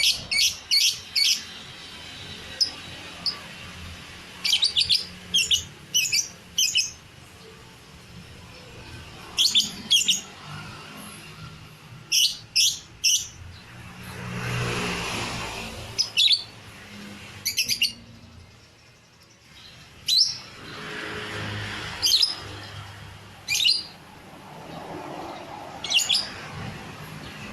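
Lovebird singing in repeated bursts of three to five quick, shrill chirps every couple of seconds. A softer rush of noise swells and fades twice along the way.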